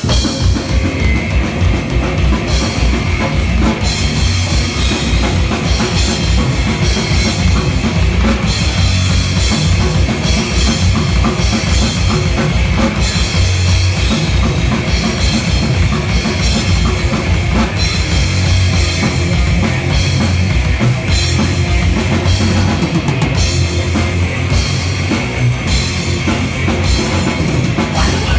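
Live band playing loud, fast metal music, driven by the drum kit: rapid bass-drum strokes and cymbals under electric guitars.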